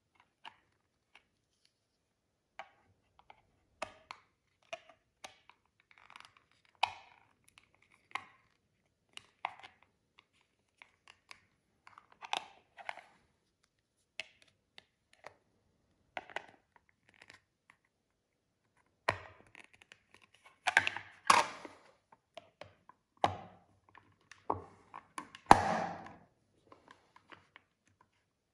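Hard plastic parts of a Banpresto figure's display stand clicking, knocking and scraping as the support post is worked into the round base. There are scattered small clicks, then a run of louder knocks and rattling in the last third.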